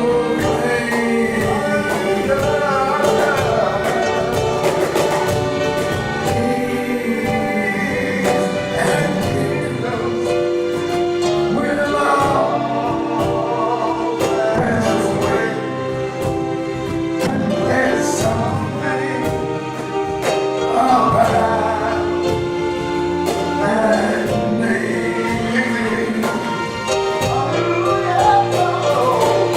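Gospel worship song: several voices singing together over instrumental accompaniment.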